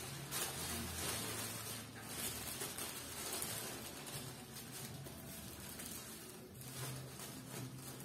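Sheets of tissue paper rustling and crinkling as they are handled, folded and pressed flat along a glued seam, over a low steady hum.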